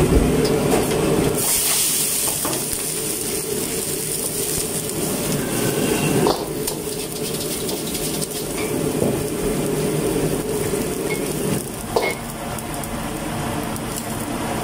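Water sizzling and hissing in a hot wok as it is scrubbed out by hand, over the steady rush of a gas wok burner. A brighter hiss begins about a second and a half in, with a couple of short knocks of the tool against the wok.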